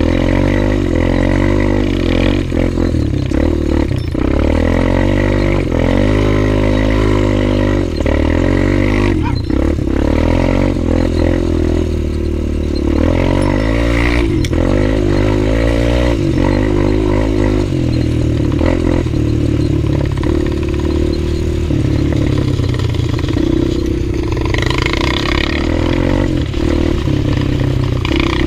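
Honda TRX250EX ATV's single-cylinder four-stroke engine running under load while riding, its pitch repeatedly rising and falling with brief dips as the throttle is worked.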